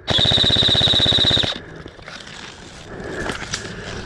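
Airsoft rifle firing on full auto: a rapid, even burst of about a second and a half that stops abruptly, followed by a few faint ticks.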